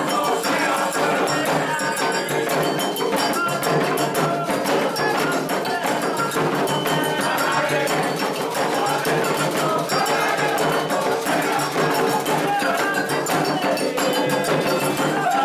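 Candomblé ritual music for Oxossi: atabaque hand drums played continuously with a struck metal bell (agogô) and voices singing the chant.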